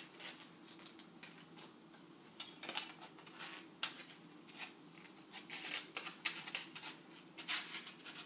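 Thermocol (polystyrene foam) airplane pieces being handled and pushed together by hand: irregular light clicks and rustles, over a steady low hum.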